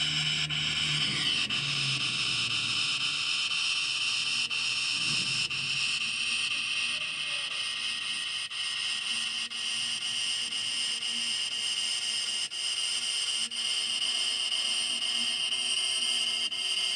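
Cartoon slap sound effects repeated so fast that they blur into one continuous, steady, hiss-like noise. A low tone fades out in the first couple of seconds.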